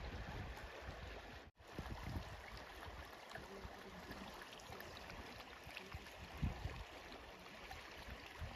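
Faint steady rush of river rapids, with some low wind rumble on the microphone and a brief gap about a second and a half in.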